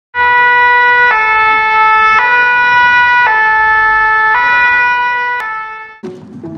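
Two-tone emergency-vehicle siren alternating between a higher and a lower note about once a second, fading out near the end. Plucked strings start just as it dies away.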